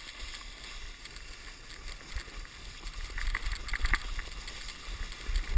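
Sled sliding downhill over snow: a steady hiss of the sled on the snow over a low rumble, with rough scraping and crunching that grows louder from about two seconds in.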